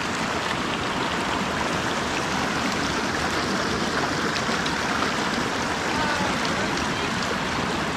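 Creek water rushing and splashing over rocks, a steady, even rush.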